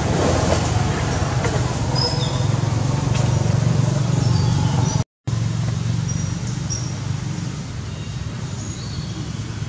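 A steady low rumble, like an engine running or road traffic, with short high-pitched chirps scattered through it. The sound cuts out for a moment about five seconds in.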